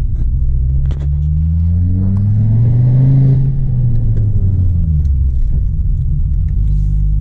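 Volvo C30 T5's turbocharged five-cylinder engine, heard from inside the cabin, climbing in revs for about two seconds under acceleration, then dropping back and running steady.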